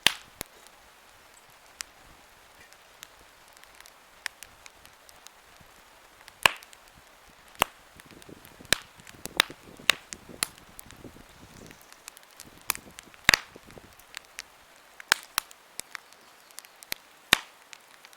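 Wood campfire crackling: irregular sharp pops and snaps over a faint hiss, coming in quick clusters at times.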